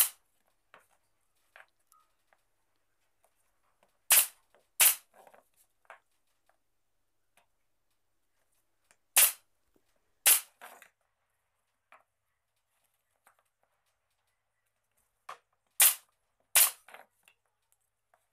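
Sharp, short snaps: one at the start, then three pairs, each pair about a second apart and the pairs five to six seconds apart, with near silence between.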